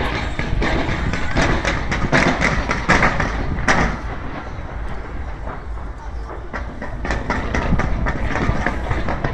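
Aerial fireworks bursting and crackling in a rapid string of bangs, thickest in the first few seconds and again near the end.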